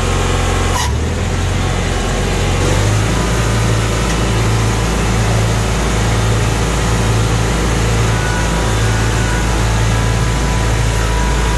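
Ariens GT19 garden tractor engine running steadily with its front snowblower. There is a sharp click about a second in, and from about three seconds in a low pulsing rumble sets in.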